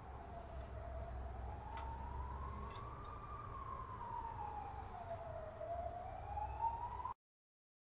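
Emergency vehicle siren wailing, one tone that slowly rises and falls about every five seconds over a low rumble. It cuts off abruptly about seven seconds in.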